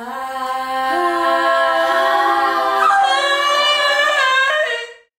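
Four children singing together in long held notes, the pitch stepping up about a second in, all stopping at once shortly before the end.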